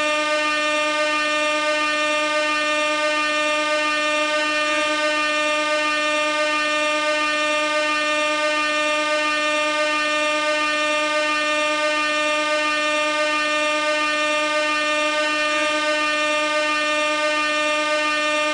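Gas air horn sounding one continuous blast at a single steady pitch, with a faint blip twice.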